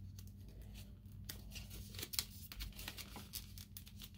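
Paper packaging crinkling and rustling in faint, irregular crackles as hands work a small card holder out of its wrapping.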